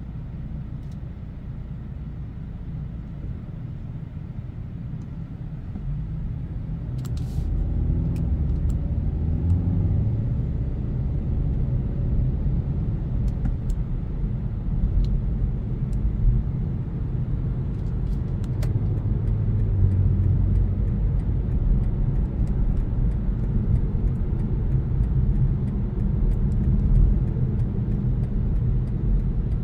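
BMW 520d's four-cylinder diesel engine and tyre noise as the car drives, heard from inside the cabin, growing louder about six seconds in.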